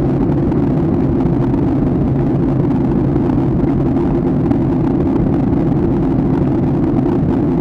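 Steady, deep drone of a jet airliner in flight, the engine and airflow noise heard inside the passenger cabin.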